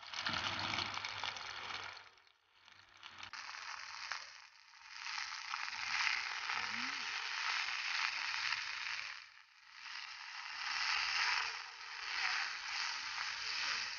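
Sausages and then seasoned meat slices sizzling as they fry in oil in a cast-iron skillet. The sizzle drops away briefly a few times and comes back.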